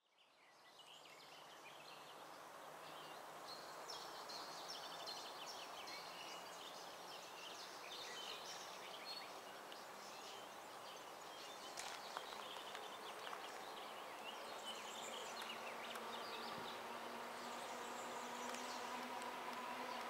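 Quiet trackside ambience fading in from silence: a soft hiss with scattered high chirps and insect buzzing. In the last few seconds a steady hum from an approaching EP09 electric locomotive rises and grows louder.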